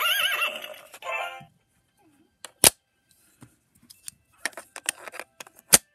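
An electronic toy's synthesized singing voice for about a second and a half, then stopping. After a pause come sharp clicks: one loud click near the middle, a scatter of small ones, and another loud click near the end.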